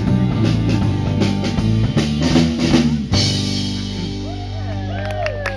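Rock band ending a song: drum kit and guitars play on until about three seconds in, then a final hit and the last chord ringing out.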